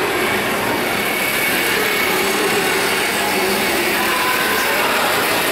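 Steady whir of a battery-powered plush ride-on animal's electric drive as it rolls along a mall floor, over the steady hum of the shopping mall.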